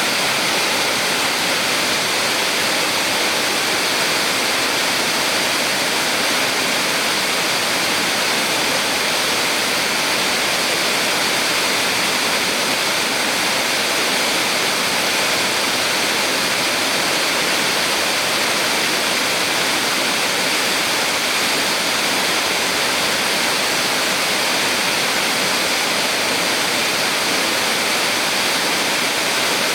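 Small waterfall on a mountain stream pouring steadily, a constant rushing hiss of falling and splashing water.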